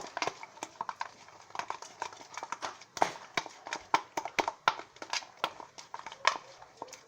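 A fork stirring glue and detergent into slime in a container, with irregular clicks and taps of the fork against the container, several a second.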